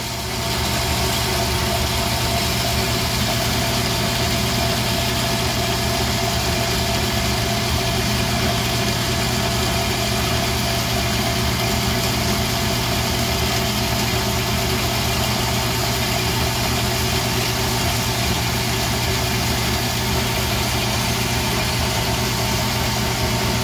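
Tormach AF50 automatic horizontal bandsaw running steadily, its blade cutting through a clamped stack of aluminum bars: an even mechanical hum with several steady tones.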